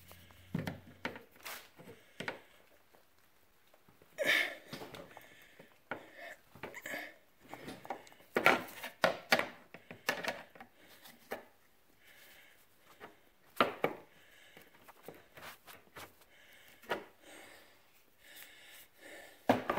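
Irregular knocks, scrapes and short squeaks as a metal hinge pin is forced by hand through the tight slots of a plastic grass catcher cover's hinge.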